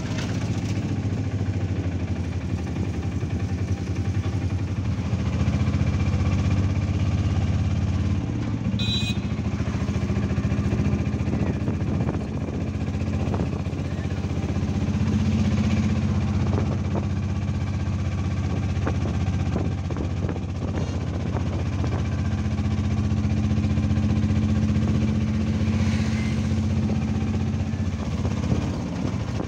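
Auto-rickshaw's small engine running as it drives through traffic, its note rising and falling with speed.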